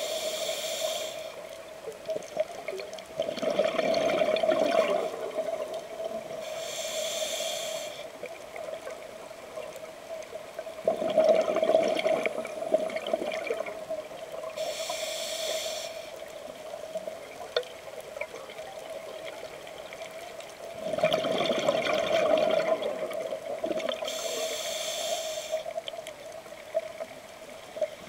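Scuba regulator breathing heard underwater: a short hissing inhale through the regulator, then a louder, longer bubbling rush of exhaled bubbles a few seconds later, the cycle repeating about every eight seconds. A steady hum runs underneath.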